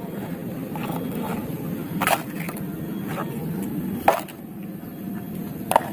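Hard plastic toys knocking against each other and the tray as they are handled in shallow muddy water: three sharp clacks about two seconds apart, over a steady low background noise.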